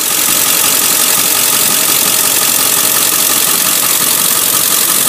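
Ford 7.3-litre Power Stroke V8 turbodiesel idling steadily, heard close up with the hood open.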